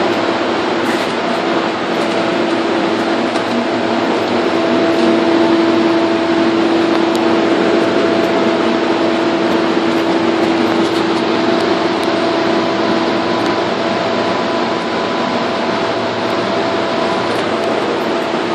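Loud, steady industrial machinery noise: a wide, even hiss with a constant hum under it, and a higher tone joining for a few seconds about twelve seconds in.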